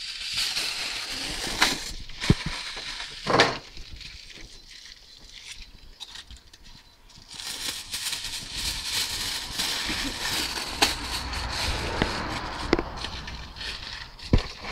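Aluminium foil being unrolled, torn off the roll and crumpled by hand: a crinkling rustle with a few sharp crackles, easing off for a few seconds in the middle before it picks up again.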